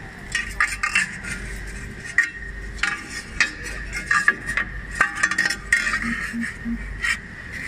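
Irregular light metallic clinks and knocks of aluminium profile being handled and set up on a double-head aluminium cutting saw before a test cut.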